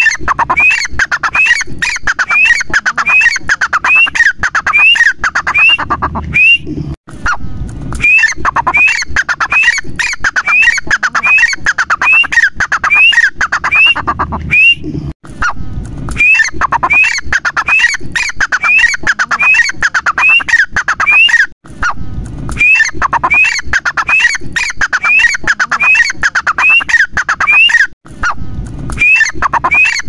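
Grey francolin (teetar) calling: a loud, rhythmic series of ringing call notes, about two a second, in runs of six or seven seconds broken by short pauses.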